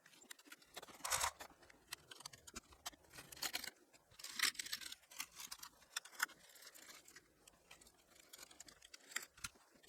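Faint, scattered scrubbing strokes with a few small clicks as a keyboard's bare board is cleaned. There are about half a dozen short strokes, each a fraction of a second long.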